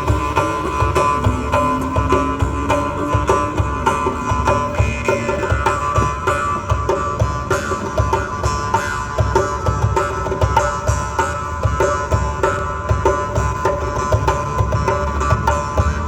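Instrumental music: plucked string melody over hand-drum percussion with a quick regular pulse, with sliding notes in the first few seconds.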